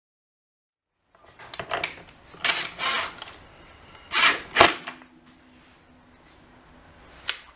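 About a second of silence, then clicks, rattles and knocks of plastic wiring connectors and board parts being handled and pushed into place at the back of a fridge, with a single sharp click near the end.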